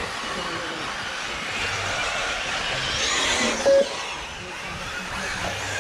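Radio-controlled cars racing around a track: a steady whirring haze, with a whine that rises and falls about three seconds in. One short, loud beep sounds a little before four seconds in.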